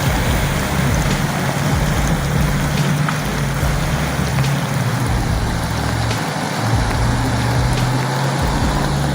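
Truck engine running steadily while the truck drives through a river, with water rushing and splashing around it.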